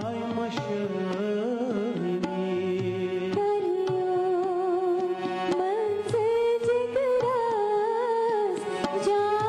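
A Kashmiri song performed with harmonium and tabla. A man's voice sings in the first few seconds, then a woman's higher voice takes up the melody about four seconds in, over the harmonium and light tabla strokes.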